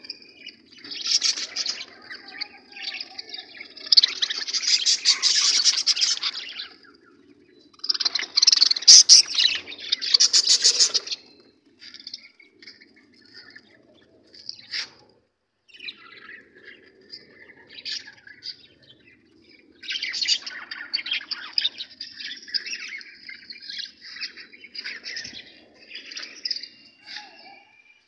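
Caged budgerigars chattering and chirping in loud flurries a few seconds long, with quieter spells in between.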